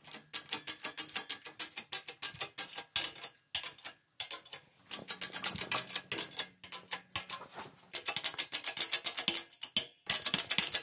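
Shop press's hydraulic jack pumping in bursts of rapid, even clicks, about ten a second, with short pauses between bursts, as the ram presses a bent steel grinder guard straight.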